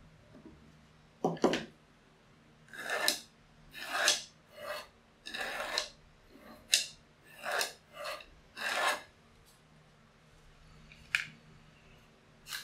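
Pencil scratching over plywood in a series of short separate strokes, tracing a line around a plywood box frame. A few sharp wooden knocks come in between as the frame is moved.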